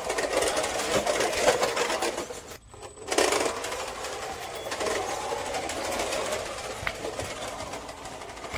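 Homemade 4x4 RC car's brushless electric motor and drivetrain whirring as the car drives, with its tyres rolling over rough concrete and dirt. The sound drops out briefly about two and a half seconds in, then resumes.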